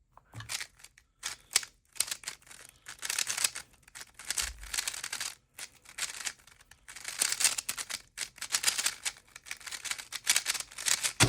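Rapid, uneven clicking of a speedcube's layers being turned fast during a solve, with one sharp, louder click at the very end.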